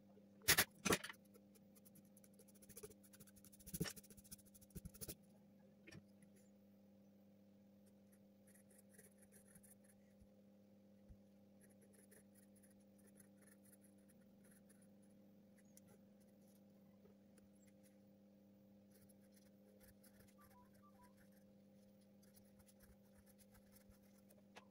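Graphite pencil writing on drawing paper: faint scratchy strokes in short runs. A few loud knocks come in the first five seconds, over a steady low hum.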